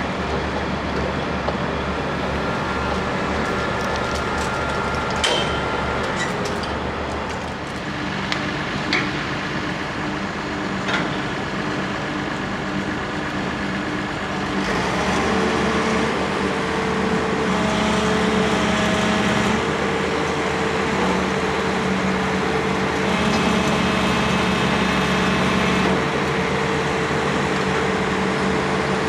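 Heavy diesel construction machinery running steadily, with a few sharp metallic clanks in the first half. About halfway through the engine note rises and gets louder, as if under more load, and stays there.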